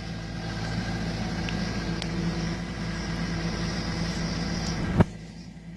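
A heavy vehicle's engine running steadily. A single sharp knock comes about five seconds in, after which the sound is quieter.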